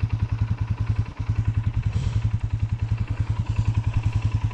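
Kawasaki KFX 450R quad's single-cylinder four-stroke engine running at low revs with an even, rapid chugging beat, with a brief dip about a second in.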